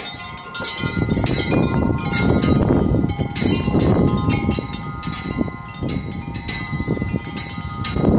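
Wind chimes ringing and clinking in gusty wind, several tones held and overlapping, while wind gusts rumble on the phone's microphone.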